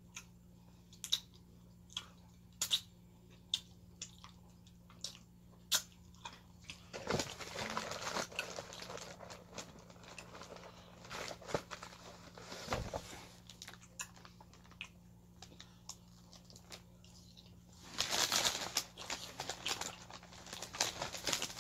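Close-up mouth sounds of eating: a string of sharp lip smacks and finger-licking clicks over the first six seconds, then longer stretches of chewing noise, loudest near the end.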